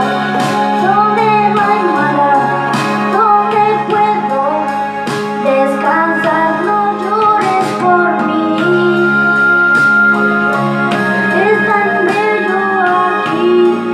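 A child singing a slow ballad into a handheld microphone over a karaoke backing track with held keyboard chords.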